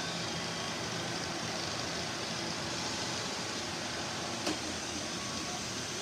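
Several robot vacuum cleaners running together on a concrete floor, a steady whirring hum of their fans and brushes. A single sharp click sounds about four and a half seconds in.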